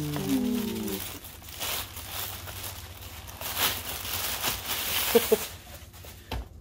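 Tissue paper rustling and crinkling in uneven handfuls as it is pulled off new sneakers in their box. A brief hummed voice sound in the first second.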